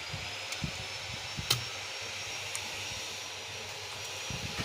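Steady airy hiss with a thin high whine, broken by a few sharp clicks and soft knocks, the loudest about one and a half seconds in.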